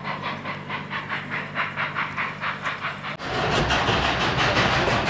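Narrow gauge steam train running, with a fast, even beat of about five or six a second over a hiss. About three seconds in, the sound jumps abruptly to a louder, denser rush.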